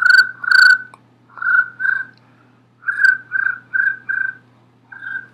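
Mouth imitation of a cricket, made with the hands cupped over the mouth: a string of about nine short, high chirps on one pitch, coming in uneven groups with short gaps.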